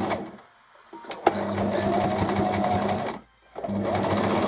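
Electric sewing machine stitching in three spells, stopping briefly twice, with a sharp click as it starts up again about a second in.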